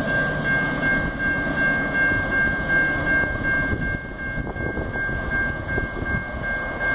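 Railroad crossing warning bell ringing with a steady, evenly pulsing high tone while a freight train approaches. A low drone underneath fades out about halfway through.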